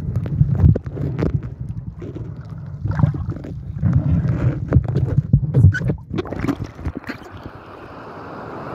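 Muffled water rumbling and knocking against a waterproof camera held underwater, irregular, with many sharp clicks. About seven seconds in, the camera breaks the surface and a steady open-air hiss of wind and waves takes over.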